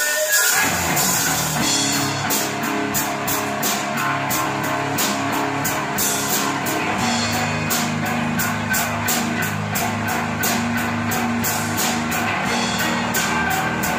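A live rock band with drum kit and electric guitar comes in about half a second in and plays on with a steady cymbal beat.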